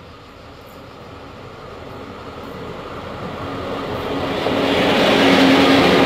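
Diesel-hauled train approaching, its sound growing steadily louder and becoming loud in the last second or so, with a steady drone coming in about halfway through.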